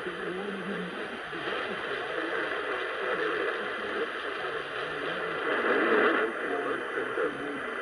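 Off-air radio receiver audio: a steady static hiss with a muffled, indistinct voice under it, swelling louder about six seconds in.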